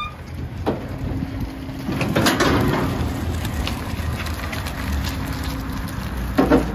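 Steady low outdoor rumble, like wind on the microphone and distant traffic, with a few short knocks and scuffs, the loudest about two seconds in and again near the end.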